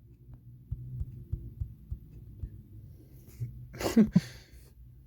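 Low steady hum with faint soft thumps, then about four seconds in a brief wordless vocal sound from a man, falling in pitch.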